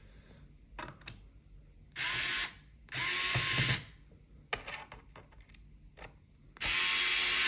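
HOTO cordless electric screwdriver running in three short bursts, each with a steady motor whine, with a few sharp clicks of handling between them.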